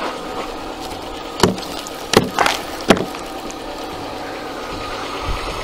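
Car engine idling as it warms up in the cold, with three sharp knocks as the frozen windscreen wiper is worked loose from the iced glass.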